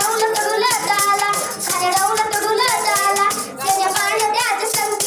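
A boy singing a Marathi powada (ballad) through a microphone in long, wavering held notes, beating a hand-held frame drum (daf) in rhythm.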